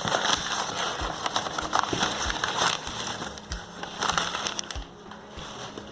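Packing paper rustling and crinkling as it is handled and pulled out of a cardboard shipping box, an uneven crackle with a short pause about five seconds in.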